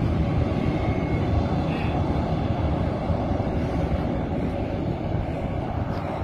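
Twin-engine narrow-body jet airliner's engines running as it taxis, a steady low rumble that eases slightly toward the end.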